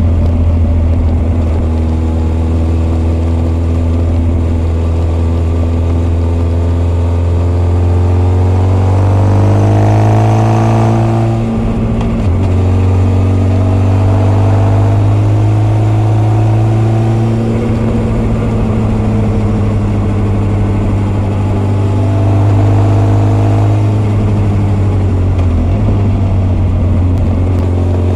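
Honda CB1300 SF inline-four running hard under way, with the intake of its Keihin FCR41 carburettors and its r's gear Wyvern full exhaust both heard. The revs climb and drop sharply at a gear change about halfway through, hold fairly steady, then climb again and drop near the end.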